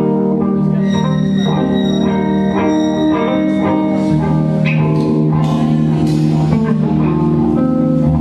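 Live rock band playing: electric guitar notes ringing and sustaining over drums, with cymbal hits.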